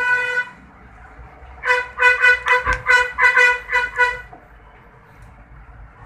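Nokia 1110 phone's buzzer sounding key beeps as the bare keypad contacts are pressed: one buzzy beep of about a second at the start, then about ten short beeps in quick, uneven succession, with a light knock among them.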